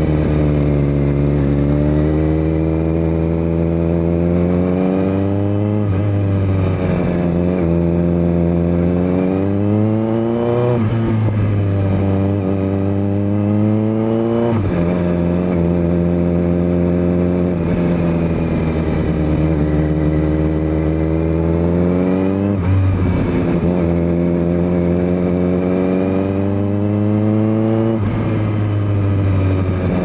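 Kawasaki Z900's 948 cc inline-four through a LeoVince LV10 Carbon slip-on exhaust, ridden hard through the gears. The pitch climbs for several seconds and then drops sharply at each upshift, about three times in the first fifteen seconds. After a steadier stretch there is another quick drop and a climb near the end.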